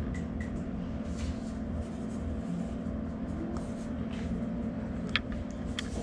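A steady low electrical hum fills the small room, with light scratching of a pen writing on paper at the desk. Two short sharp clicks come near the end.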